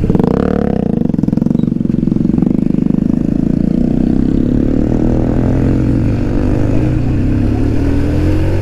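Motorcycle engine running while riding: it revs up briefly at the start, then settles into a steady cruise.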